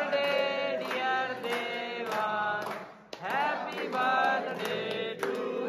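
A group of young men chanting together in unison to steady rhythmic hand-clapping, with a short break about three seconds in.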